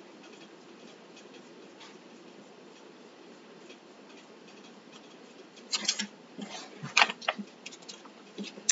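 Faint room tone, then from about six seconds in a quick run of light clicks and knocks on a tabletop as small laser-cut wooden craft pieces and the paint plate are handled during sponge painting.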